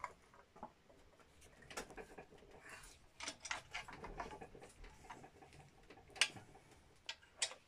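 Faint scattered clicks and light metallic taps as a coil-over shock absorber is handled and adjusted by hand in its mounting bracket, with a few sharper clicks about two, six and seven and a half seconds in.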